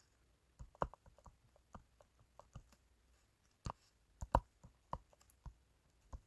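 Faint, irregular clicks and taps, scattered at uneven intervals, the loudest a little past four seconds in.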